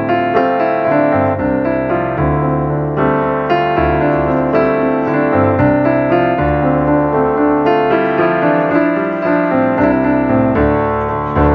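Background piano music, a steady flow of struck notes.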